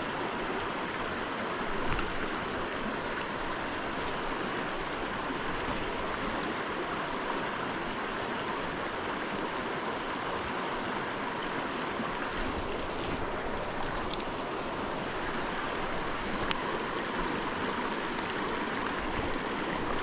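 Water of a small mountain creek rushing steadily, with a few faint clicks.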